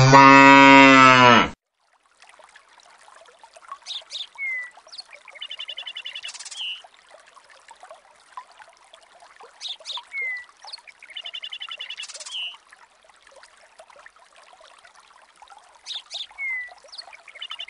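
A single long cow moo, loud, lasting about a second and a half. Then faint bird chirps, short whistles and trills over a steady hiss, with the same run of calls repeating about every six seconds.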